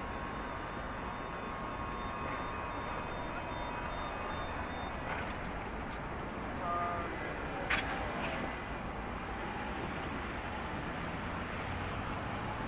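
City road traffic: a steady hum of cars and tyres. A faint electronic beeping stops about four seconds in, and a single sharp click comes at about eight seconds.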